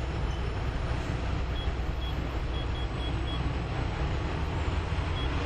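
Steady outdoor city ambience: road traffic hum with a low rumble, and a few faint short high chirps near the middle.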